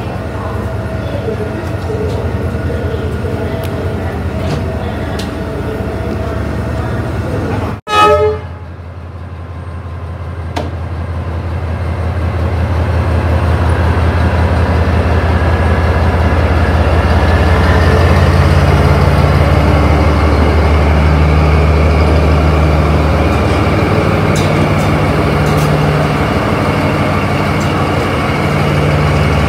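D19E diesel-electric locomotive's engine running beside the platform: a deep, steady drone that grows louder from about ten seconds in and then holds. Just before, at about eight seconds, there is a single brief, very loud pitched blast, and before that a quieter steady hum of the train.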